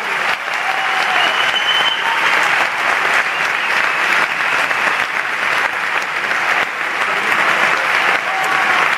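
Arena concert audience applauding loudly, with a high whistle from the crowd over it in the first couple of seconds.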